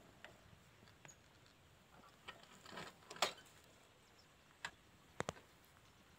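Faint, irregular clicks and rustles from someone walking over dry field stubble with a handheld phone. The loudest click comes about three seconds in, and two close clicks come near the end.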